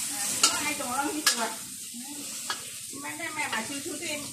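A utensil scraping and clinking around a steel wok as food is stir-fried, over a steady sizzle. A couple of sharp knocks of the utensil against the pan stand out, about half a second and just over a second in.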